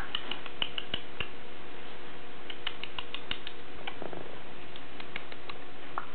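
Quick, light clicks in short irregular clusters, three to eight at a time, over a faint steady hum.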